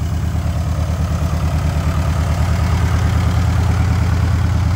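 1953 Ford Jubilee tractor's four-cylinder gasoline engine idling steadily, just started on a cold morning.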